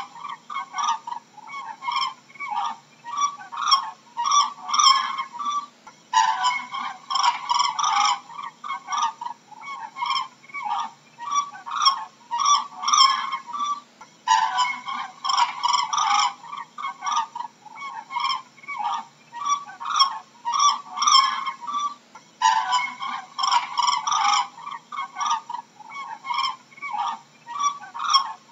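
A group of cranes calling, many short overlapping calls several times a second, with a denser, louder cluster of calls about every eight seconds.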